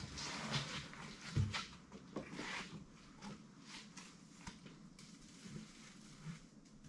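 Soft swishing and rubbing as tyre-mounting lube is worked onto the bead of a large mud-terrain tyre, with a dull knock about a second and a half in and a few light taps after.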